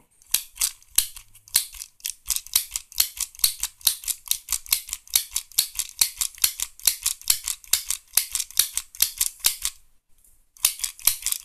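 Handheld stapler-style mini sewing machine being squeezed over and over to stitch cloth, each squeeze a sharp mechanical click, about four to five a second. The clicking breaks off briefly about ten seconds in, then starts again.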